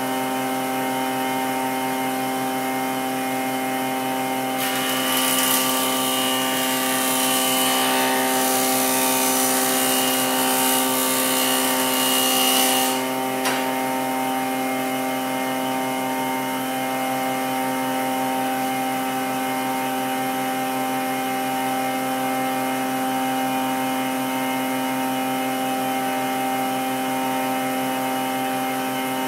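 Nishino MK-900 universal woodworking machine running steadily with a hum of several fixed tones. About five seconds in, a loud hiss of wood being cut joins it for roughly eight seconds, then cuts off, leaving the machine running on.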